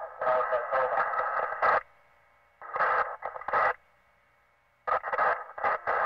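Police radio transmissions: three bursts of tinny, narrow-band, garbled dispatch voice, separated by short quiet gaps, with a sharp click as a transmission cuts off.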